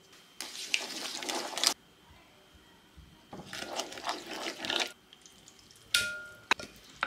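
Spoon stirring and scraping a wet yogurt-and-spice marinade in a ceramic bowl, in two bursts of a second or so each. About six seconds in, a sharp ringing clink of ceramic and two lighter knocks as raw chicken legs are tipped into the bowl.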